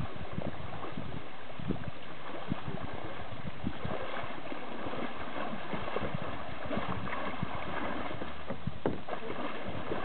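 Horses wading through a shallow river, their legs sloshing and splashing in the water in many small irregular splashes over a steady background noise.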